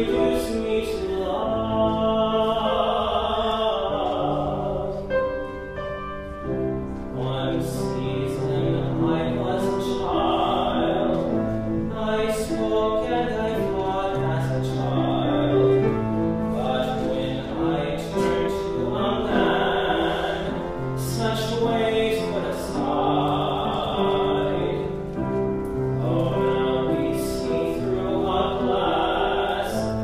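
A baritone singing a solo song, held notes changing one after another, with piano accompaniment.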